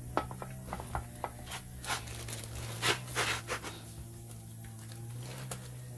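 A few rubbing, scraping handling noises as a gloved hand moves over the differential housings and the rags beneath them, loudest about two to three and a half seconds in, over steady background music.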